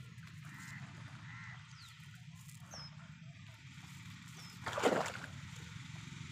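Water splashing and dripping as a wet nylon fishing net is hauled out of the water into a boat, with one loud splash about five seconds in. Short bird chirps and calls sound faintly now and then.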